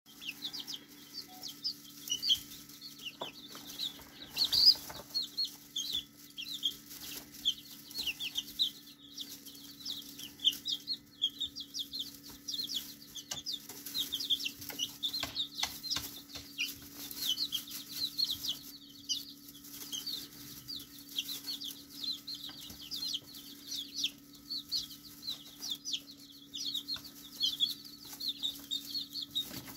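Five 33-day-old chicks peeping continuously: many short, high cheeps overlapping one another.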